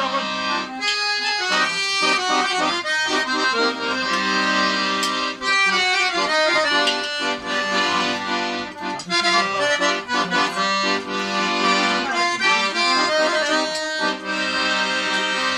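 Two accordions playing a tune together with no singing: quick runs of notes over a rhythmic chord accompaniment.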